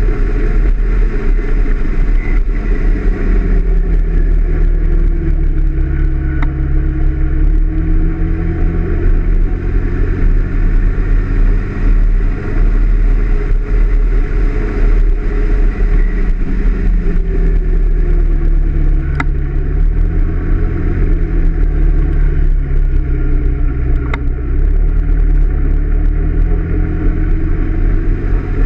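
Honda PCX 125 scooter's single-cylinder engine running on the move, with its note falling and rising several times as the throttle is eased and opened again. A heavy low wind rumble on the microphone sits under it.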